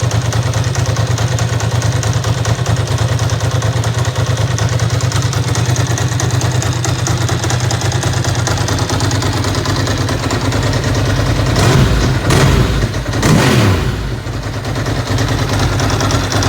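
Ducati ST4's 916 cc V-twin, breathing through its stock exhaust, idling steadily after a winter lay-up. Near the end it is given a few quick blips of the throttle, its pitch rising and falling each time before it settles back to idle.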